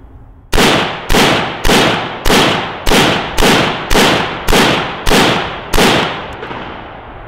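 AR-15/M4-style carbine firing ten shots at an even pace, about one every 0.6 seconds, each report echoing and decaying before the next. The string is a timed ten-round drill: the shooter is pacing his shots to stay accurate within a 10-second par time, and the echo fades away after the last shot a little before six seconds in.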